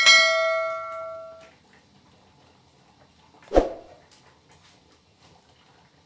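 Notification-bell sound effect from a subscribe-button overlay: a sharp click, then a bright bell-like ding that rings out and fades over about a second and a half. A single soft thump follows about three and a half seconds in.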